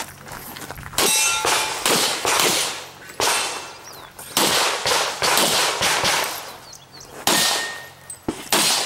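A string of pistol shots fired from a kneeling position through a wall port during a practical shooting stage, each shot sharp with an echoing tail, spaced about half a second to a second apart. A brief metallic ring follows one of the early shots.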